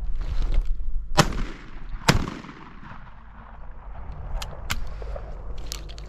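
Two shotgun shots about a second apart, the second the louder, each trailing off in a short echo. A few light clicks follow.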